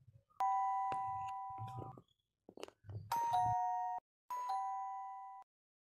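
Two-tone doorbell-style chime sound effect, ding-dong, played three times, each chime dying away over about a second and a half. Short soft clicks fall between the chimes.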